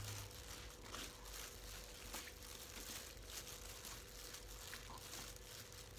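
Hands in thin plastic gloves tossing a leafy herb salad: soft, irregular crinkling and rustling of glove plastic and leaves, with a few small clicks.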